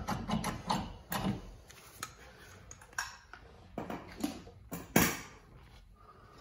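Scattered metallic clinks and knocks of brake parts being handled as a Wilwood front caliper is taken off the rotor. The loudest knock comes about five seconds in.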